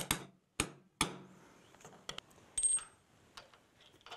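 Hammer striking a steel concrete anchor bolt, driving it snugly down through the lift's base plate into a drilled hole in the slab. About four sharp metal strikes come in the first second, then a few lighter metallic clinks.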